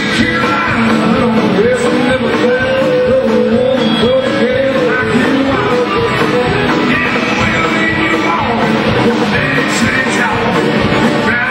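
Live country-rock band playing on stage, guitars over drums. A melody line of sliding notes stands out from about a second and a half in.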